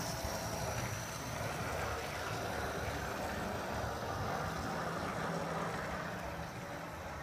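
Model camel-class steam locomotive and tender running along the track, its electric motor and wheels on the rails making a steady, even rumble with no chuff rhythm, a little quieter near the end.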